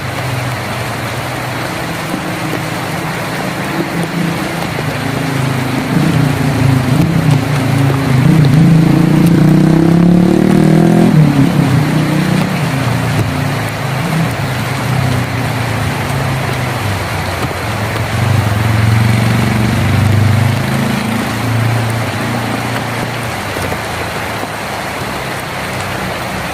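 Steady rain on a tin roof, with the engine of a passing motor vehicle over it: its pitch rises and grows louder, then cuts off abruptly about eleven seconds in. A weaker engine sound follows later.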